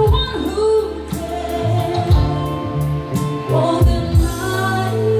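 Live band music with a singer, a sung melody over a bass line and a regular kick-drum beat.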